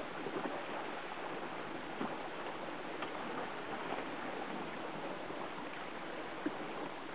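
Steady rush of water and wind noise on the water, with a few faint knocks, the sharpest near the end.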